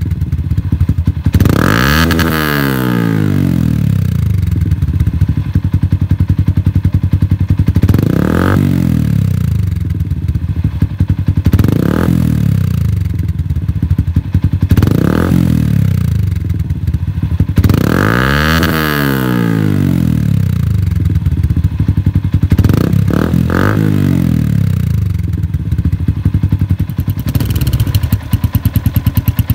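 Yamaha Sniper 150's single-cylinder four-stroke engine breathing through an aftermarket Akrapovic slip-on canister, idling between repeated throttle blips. Each rev climbs sharply and falls back to idle, several times, a few seconds apart.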